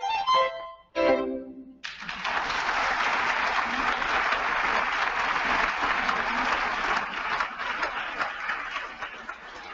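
Live stage accompaniment ending on a short final chord about a second in, then the audience breaks into applause, which thins out near the end.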